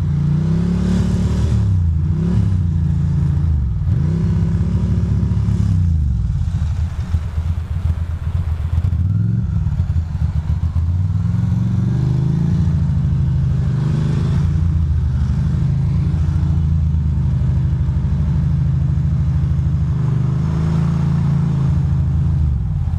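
Ducati Monster 620's air-cooled L-twin engine running under the rider at low speed. Its revs rise and fall several times in the first few seconds, settle lower for a while, then climb and hold steady before easing off near the end.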